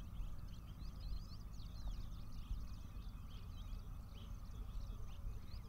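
Many small birds chirping and twittering together in a dense, continuous chorus, over a low steady rumble.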